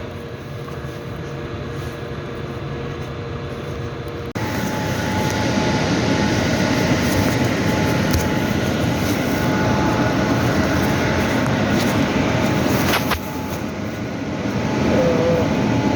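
Steady mechanical noise, like a machine or traffic running in the background. It steps up abruptly about four seconds in and drops back near the end.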